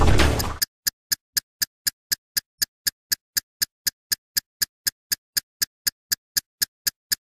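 Sharp, even ticking, about four ticks a second, with dead silence between the ticks; music cuts off about half a second in.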